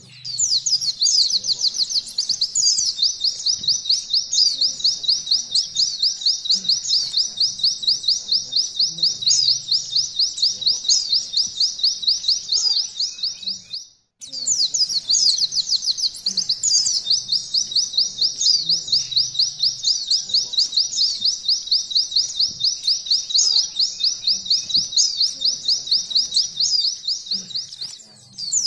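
A white-eye (pleci) sings a long, very fast canary-style trill, the 'nembak' song. It breaks for an instant about halfway through, then starts again.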